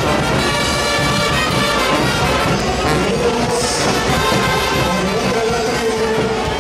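Music led by brass instruments, such as trumpets, playing continuously at a steady level.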